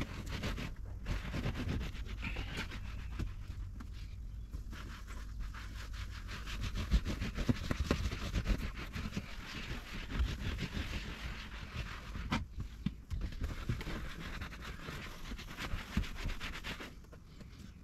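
Hand-scrubbing and rubbing inside a car's interior: irregular scratching strokes with scattered knocks, busier in the middle and quieter near the end.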